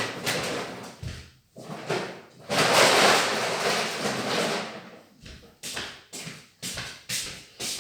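Groceries being handled and put away: a series of knocks and thumps as packages are set down, with a noisy rustling stretch of about a second and a half near the middle.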